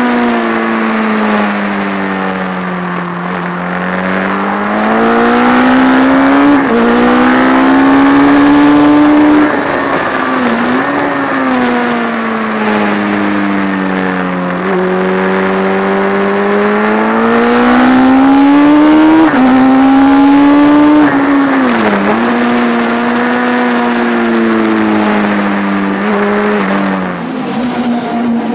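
P&M Kawasaki classic racing motorcycle's inline-four engine at full race pace, heard from onboard: the note climbs hard through the gears with a short break at each upshift, then sweeps down as the bike brakes and shifts down for corners, over and over.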